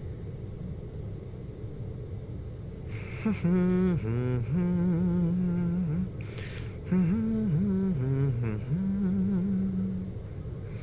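A voice humming a slow tune in long held notes with a few wavering slides, starting about three seconds in, with a short breathy intake before each phrase. Under it is a low steady room rumble.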